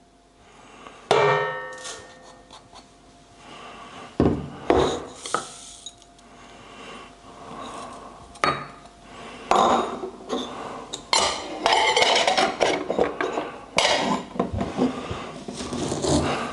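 Black peppercorns being crushed in a mortar with a pestle: a dense run of crackling, knocking strokes that starts about halfway through. Before it there is a single ringing clink about a second in, and a sharp knock a few seconds later.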